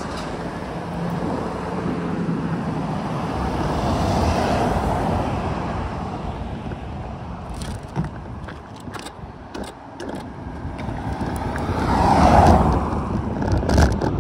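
Cars passing on the road: one swells and fades about four seconds in, and a louder one passes near the end. A few light clicks and rattles come in between.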